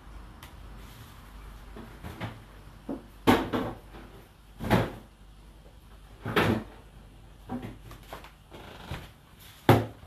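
A series of irregular knocks and bangs, one every second or so, with the loudest near the end.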